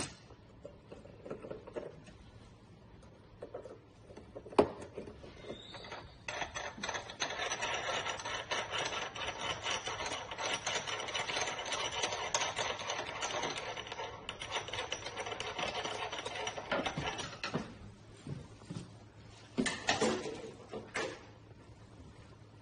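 A dense, scratchy rasping rub lasting about ten seconds, from hands working at the machine's metal handle-holder poles, with a sharp click a few seconds before it and a few short rustles near the end.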